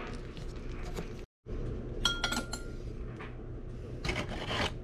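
Metal spoon clinking against a glass baking dish, a quick cluster of ringing clinks about two seconds in, then a short scrape near the end as it scoops up the fish juices.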